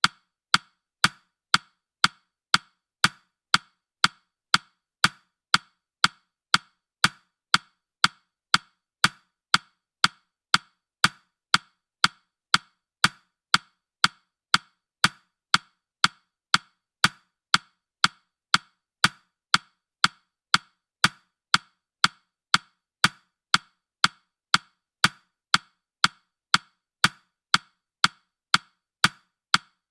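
Countdown timer's clock-tick sound effect: a steady, evenly spaced ticking of sharp clicks as the timer counts down.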